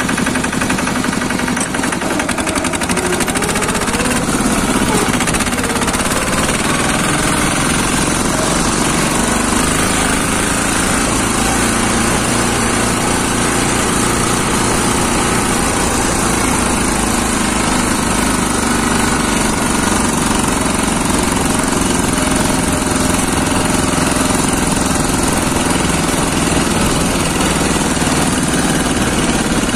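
Single-cylinder air-cooled Lombardini diesel of a two-wheel 'pat pat' tractor running steadily under load while driving, a loud, rapid chugging heard close beside the engine.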